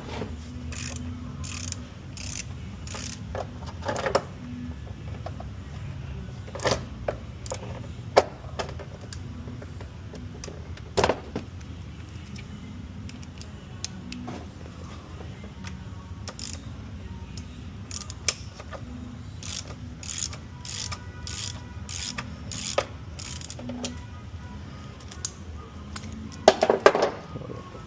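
Metal hand tools clicking and clinking while an E-Torx socket is worked on engine bolts, with a run of quick, evenly spaced ratchet-like clicks about twenty seconds in and a louder clatter of metal near the end, over a steady low background hum.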